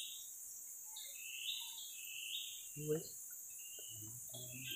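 Forest insects droning steadily at a high pitch, with short high chirps scattered throughout.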